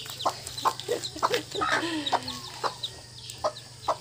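Mother hen clucking softly to her chicks, with the chicks' high peeps over it; about two seconds in, one longer call falls in pitch.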